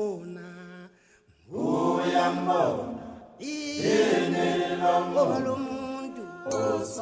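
Unaccompanied vocal chant music: voices singing long, held notes in phrases, with a short break about a second in.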